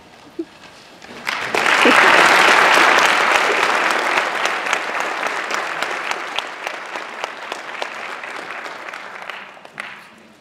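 Audience applauding: the clapping starts about a second in, swells quickly, then slowly fades away toward the end.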